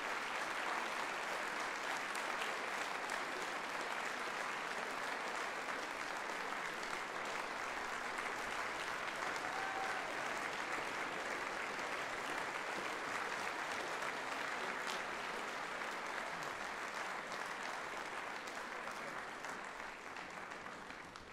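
Concert audience applauding steadily, a dense patter of many hands clapping; it fades away near the end.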